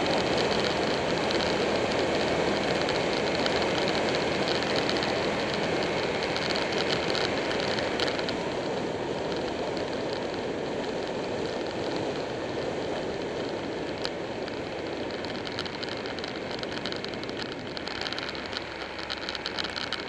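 Riding a Buell 1125R motorcycle at speed: wind rushing over the bike-mounted microphone, with the 1125 cc V-twin engine faint underneath. The noise is steady and grows gradually quieter through the second half.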